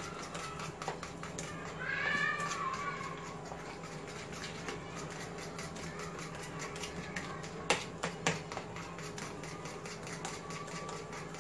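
A spoon beating gram-flour batter in a plastic bowl, a rapid, even tapping of the spoon against the bowl with wet slaps of batter, as the batter is beaten until fluffy. Two louder knocks come about eight seconds in, and a short wavering cry sounds about two seconds in.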